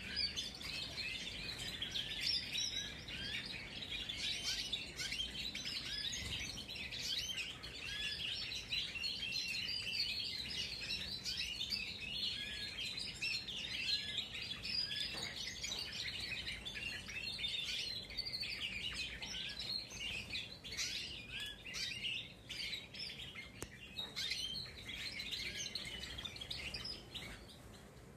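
Young Spanish Timbrado canaries rehearsing their song together: a dense, continuous twittering of many overlapping chirps and short trills. This is juvenile practice song, the stage where the young birds try out the notes that will later form their full song.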